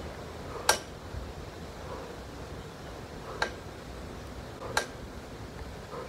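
Elliptical trainer being pedalled: three sharp metallic clicks from the machine, under a second in, at about three and a half seconds and near five seconds, over a steady low background noise.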